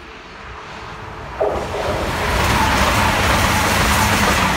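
Passenger train rushing through the station at speed: wheels on rail and rushing air rise as it approaches, jump sharply in level about a second and a half in as it draws level, then run on loud and even.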